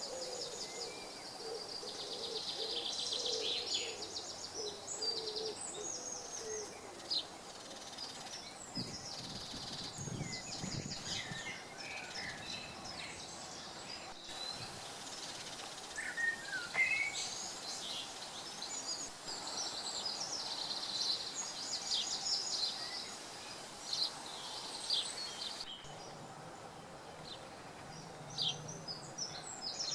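Woodland birdsong: several small birds chirping and trilling in quick, high phrases throughout, with a lower, repeated call during the first several seconds, over a steady faint background hiss.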